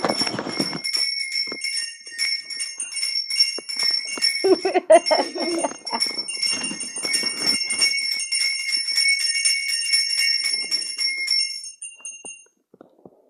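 A small bell rung rapidly and continuously, jingling without pause until it stops near the end. A short vocal sound comes through about halfway.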